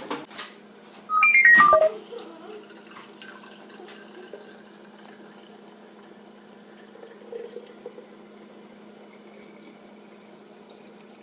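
A couple of sharp clicks, then a short run of electronic beeps stepping down in pitch, followed by faint clatter over a steady low hum.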